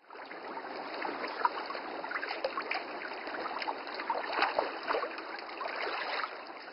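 Water babbling and trickling, like a small stream, fading in from silence at the start.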